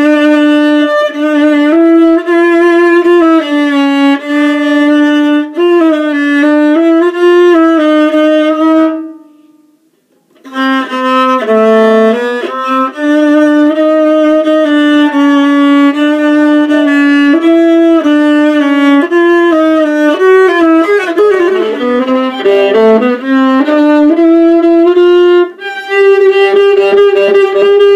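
Unaccompanied solo violin playing a bowed melody, with a short pause about nine seconds in before the line resumes. Some notes slide in pitch later on.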